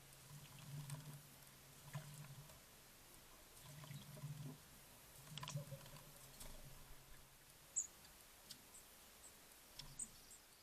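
Faint, quiet garden ambience with a few very short, high-pitched chirps from small garden birds in the last few seconds, and soft scattered clicks and patters. A faint low hum comes and goes underneath.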